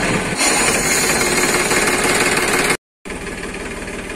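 Escorts tractor's diesel engine running just after being started, loud with a fast, regular knocking beat. It cuts out for a moment about three seconds in and comes back quieter, idling.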